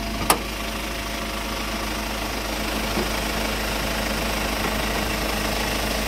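Hyundai Starex turbodiesel engine idling steadily with a faint whistling whine, the noise whose source is in question between the turbocharger, the alternator and the A/C compressor. A sharp click about a third of a second in as the bonnet catch is released and the bonnet lifted.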